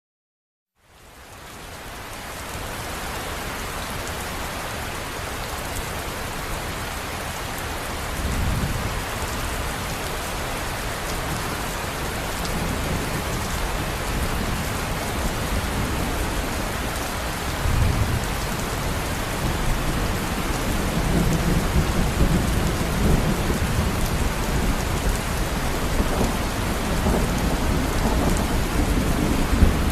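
Steady heavy rain, fading in over the first couple of seconds, with low rolls of thunder swelling up several times from about a quarter of the way in.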